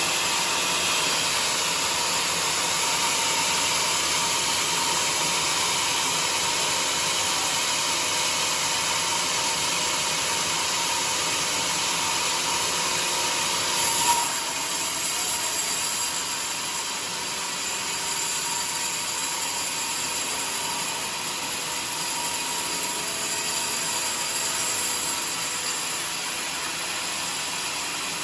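Homemade sawmill running, a steady loud mechanical noise, with one short sharp peak about halfway through and the level a little lower after it.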